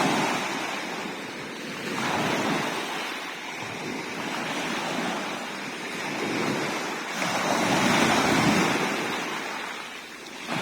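Sea waves breaking and washing, swelling twice, at about two seconds in and again around seven to nine seconds.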